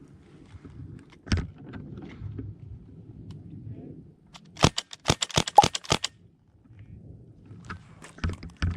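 Airsoft gun firing: a single sharp shot a little over a second in, then a rapid string of about seven shots around the middle, and two more near the end.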